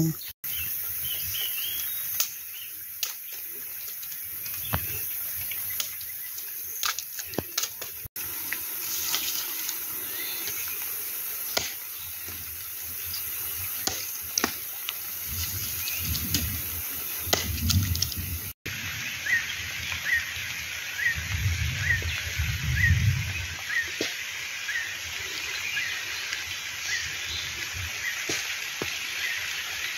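Machete blade knocking and chopping through bamboo shoots in sharp, irregular strikes, with low thumps of handling. Then, after a cut, a short high chirping call repeats about twice a second over a steady high hiss.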